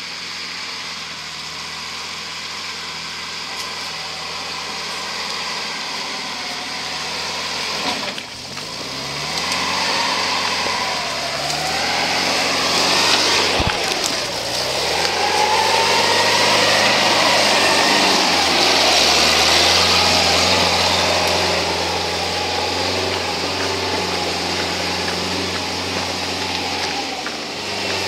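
Steyr-Puch Pinzgauer 4x4 off-road truck's engine pulling at low speed up a rough dirt climb. Its revs rise and fall through the middle, where it is loudest as the truck passes close, with one sharp knock partway through.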